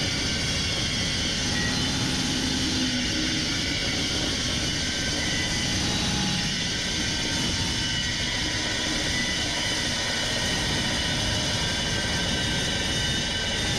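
Porter-Cable 14-inch metal dry-cut saw with a Steel Max blade cutting steadily through a Grade 8 steel bolt: a continuous, even cutting noise.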